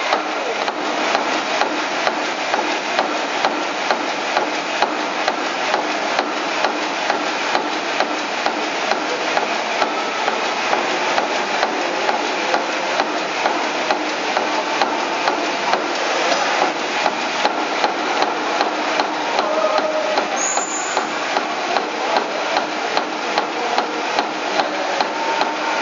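Stationary steam engine running steadily, its rods and valve gear clattering over a steady mechanical rush, with a regular knock about one and a half times a second.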